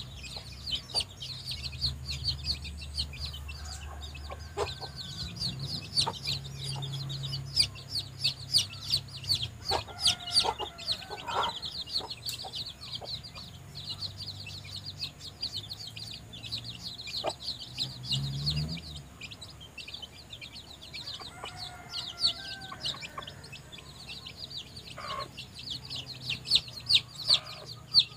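Young chicks peeping continuously in quick high cheeps, while the mother hen clucks softly a couple of times, once about ten seconds in and again after about twenty. Several sharp clicks come near the end.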